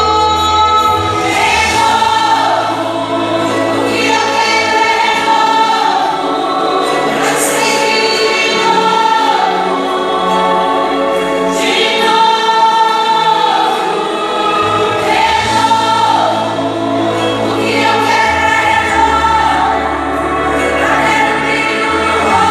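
A choir singing a Christian worship song in long held notes that slide between pitches, over a bass line that holds each note for a few seconds.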